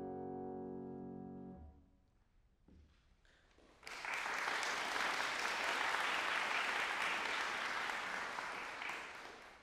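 A grand piano's closing chord sustains and fades away about two seconds in. After a short hush, audience applause starts suddenly and carries on, tapering off near the end.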